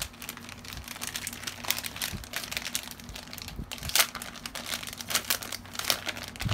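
A squishy toy's plastic bag crinkling and crackling as it is pulled open by hand, with a sharper, louder crackle about four seconds in.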